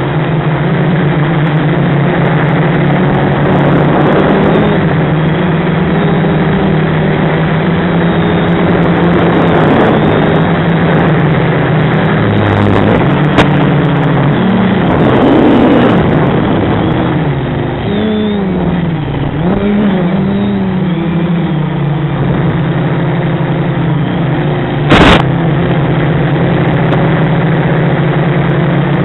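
FPV quadcopter's brushless motors and propellers whining steadily in flight, the pitch rising and falling with throttle changes, mostly through the middle of the stretch. A sharp click and, later, a brief loud crackle break in.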